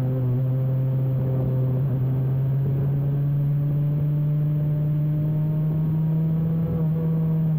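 Cagiva Mito 125's two-stroke single-cylinder engine heard onboard, held in one gear at high revs and slowly rising in pitch as the bike accelerates, with wind rushing past.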